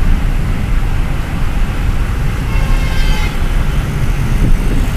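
Steady low rumble and road noise heard from inside a moving vehicle. A vehicle horn sounds briefly just past halfway.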